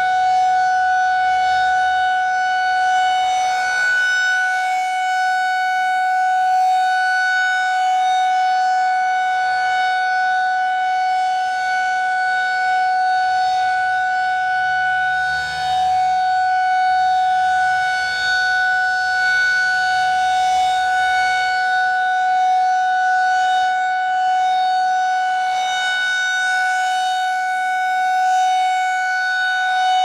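Federal Signal 2001-SRNB rotating electromechanical warning siren sounding its steady alert tone. The pitch holds level while the loudness swells and fades as the horn turns, dipping briefly about halfway through when it faces away.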